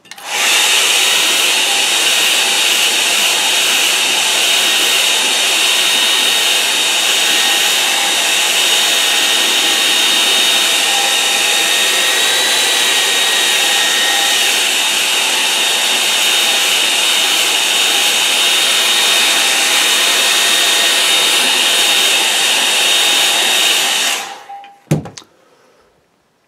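Hair dryer blowing steadily on a wet watercolour painting to dry it, with a faint high whine over the rush of air; it switches off about two seconds before the end, followed by a single thump as it is set down.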